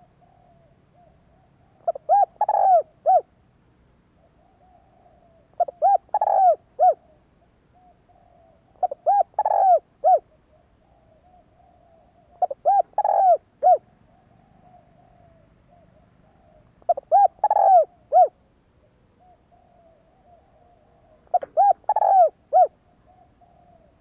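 Spotted dove singing its cooing song: six short phrases of three or four coos each, one every four seconds or so, with fainter low cooing between the phrases.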